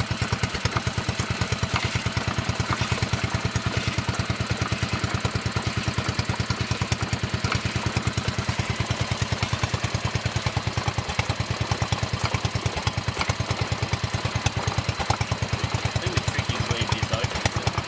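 Petter single-cylinder petrol engine running steadily, belt-driving a Southern Cross Billabong water pump, with an even, rapid beat.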